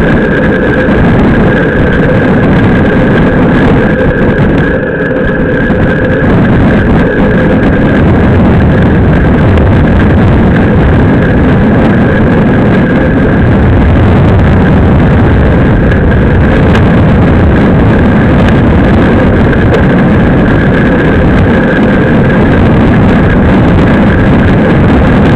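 Loud, steady wind rush over the microphone of a bike-mounted action camera at racing speed, mixed with the road bike's tyres rolling on asphalt. A faint steady high tone runs under it.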